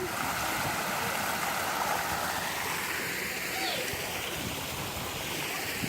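Steady rushing of a waterfall pouring into a pool.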